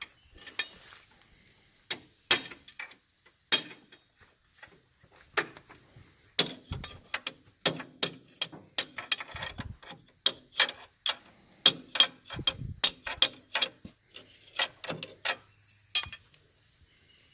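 Hand tools clicking and clinking on metal while a hose fitting is worked loose: a run of irregular sharp clicks and taps with a few dull knocks, busiest in the second half.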